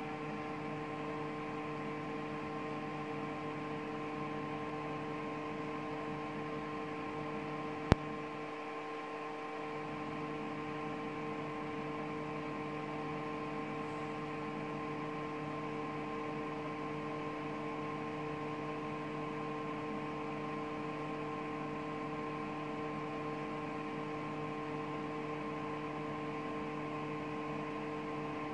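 Steady electrical hum with a hiss beneath it, holding several even tones throughout, and one sharp click about eight seconds in.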